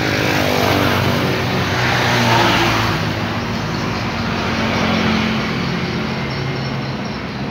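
A motor vehicle engine running, its pitch falling during the first second and then holding steady for several seconds.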